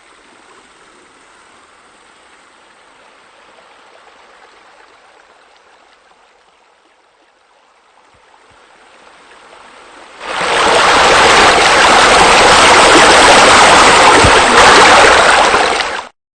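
Flowing water: a faint, steady trickle, then about ten seconds in a much louder rush of falling water that cuts off suddenly near the end.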